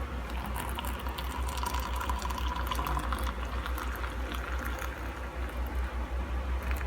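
Freshly boiled water poured from an electric kettle into a mug, a continuous splashing pour with a faint filling tone.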